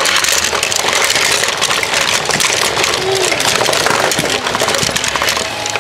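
Toy car track's motorized lift running steadily, with die-cast Tomica cars clattering against one another and the plastic track in a continuous stream of small clicks.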